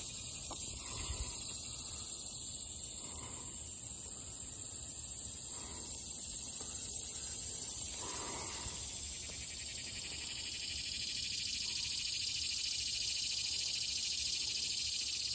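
Steady high-pitched chorus of insects chirring, a fine pulsing trill that grows a little louder about two-thirds of the way through.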